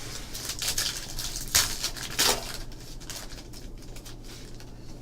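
Trading cards and a foil pack wrapper being handled: irregular rustling, crinkling and light clicks, with two louder scrapes about one and a half and two and a quarter seconds in.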